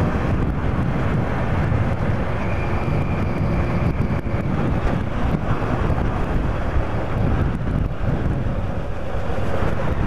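Yamaha FZR1000 inline-four motorcycle engine running steadily on the move, mixed with heavy wind noise on the microphone.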